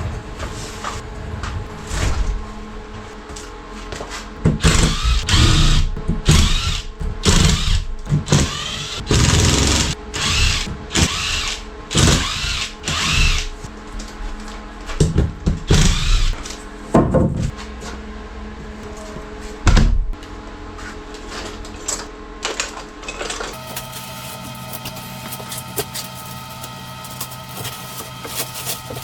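Repeated knocks and clatter of tools and objects being handled, over background music.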